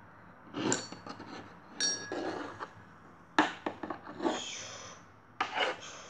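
Several light knocks and clinks of small objects being handled on a tabletop, with some rubbing in between. The sharpest knock comes about three and a half seconds in.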